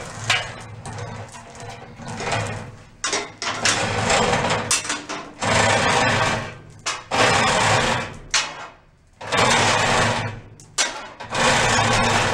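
Manual chain hoist being pulled hand over hand, its chain rattling through the hoist in repeated pulls of a second or two each, lifting a riding mower's engine block.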